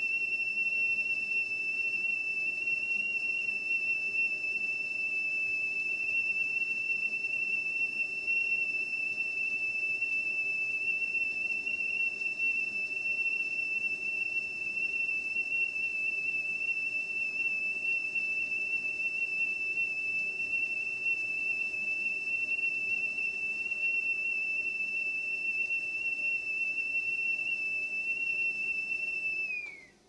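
Whistling kettle at the boil: one steady, high whistle that holds its pitch, then falls in pitch and dies away at the very end.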